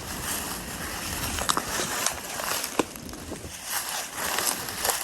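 Footsteps rustling and crunching through leaf litter and brush, with a few sharp snaps, over a steady rushing outdoor noise.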